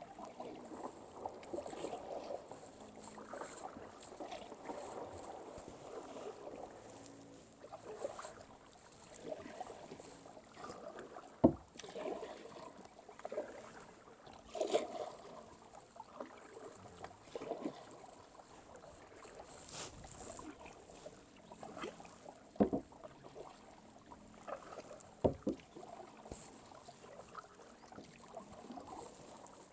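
Kayak paddle strokes in calm water: repeated irregular splashing and dripping as the paddle dips and lifts, with three sharp knocks along the way.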